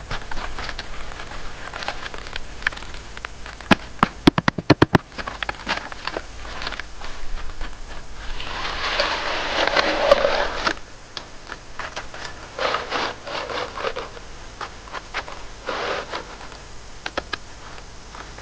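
Hand work on wood: scraping and scratching with scattered knocks. A quick run of about eight sharp knocks comes about four seconds in, and a longer, louder rasping scrape comes about nine to ten seconds in.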